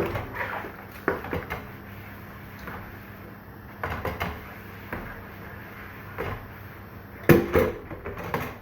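Dishes and plates knocking and clattering against each other as they are washed by hand, a few scattered clanks with the loudest cluster a little over seven seconds in.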